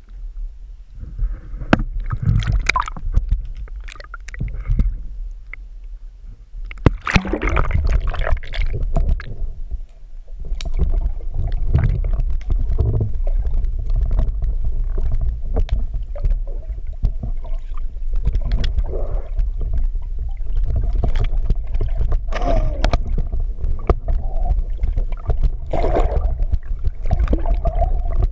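Water sloshing and gurgling around a camera held in the water, with a low muffled rumble and many scattered knocks and clicks. There is a louder rush of water about seven seconds in, and after that a steadier underwater wash.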